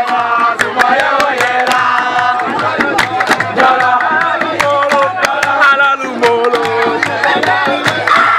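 Singing over a fast, busy percussion beat of sharp strikes.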